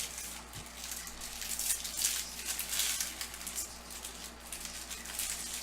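Rustling and light crackling as packs and trading cards are handled, a continuous papery rustle with small clicks.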